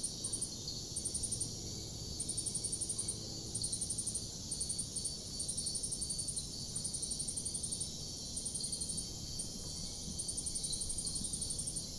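Insect chirping: high-pitched rapid trills in short bursts, repeating every second or so, over a faint low hum.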